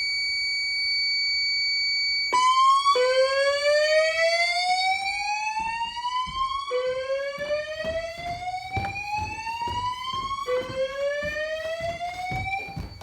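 Fire alarm voice-evacuation speakers sound a steady high tone, then switch about two seconds in to a slow whoop: three rising sweeps, each climbing for nearly four seconds before dropping back and starting again.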